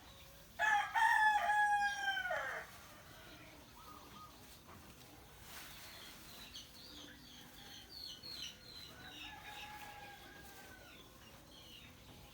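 A rooster crows once, loud and about two seconds long, its call falling away at the end. Fainter calls of smaller birds chirp through the rest.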